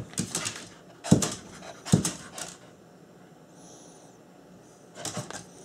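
Pomeranian panting in short noisy breaths, with a couple of short knocks in the first few seconds, then a quieter stretch and more panting near the end.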